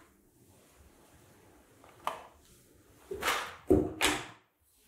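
A large printed circuit board being slid across a plastic cutting mat and set down: a short scrape about two seconds in, then a longer scrape and two sharper knocks about three to four seconds in, the loudest near three and a half seconds.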